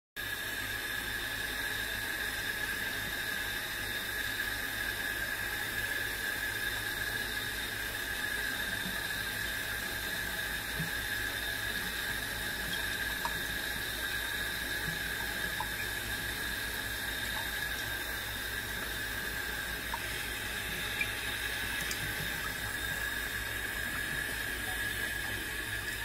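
Water running steadily from a pull-out sink hose into a full washbasin, with a steady whistling tone over the rush of water.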